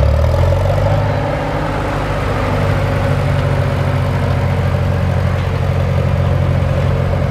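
McCormick Farmall tractor's four-cylinder engine running steadily at low speed as the tractor drives slowly past.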